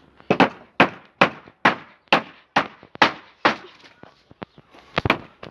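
Hammer driving a nail into wooden planks: steady blows, about two a second, then after a short pause a few quick blows near the end.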